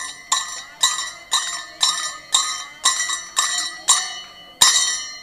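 Temple hand bell rung in a steady rhythm during aarti, about two strokes a second, each stroke ringing on and fading before the next.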